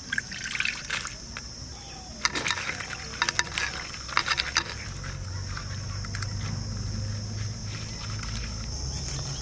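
Dried red chillies rinsed by hand in water in a shallow terracotta plate: splashes, drips and the rustle of the chillies being swished and squeezed, with a run of small splashy clicks in the middle. Crickets chirr steadily throughout, and a low steady hum comes in about halfway.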